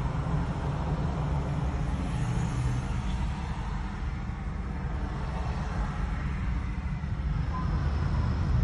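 Steady low rumble of idling vehicles in stopped traffic, heard from inside a car.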